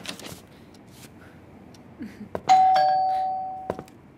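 Two-tone ding-dong doorbell chime: a higher note and then a lower one, ringing on for about a second before stopping. A few faint clicks come before it.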